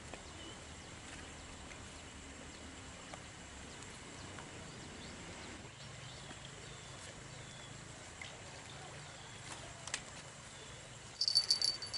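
Quiet outdoor riverside ambience with a few faint bird chirps and small ticks. Near the end a rapid, high-pitched clicking starts up.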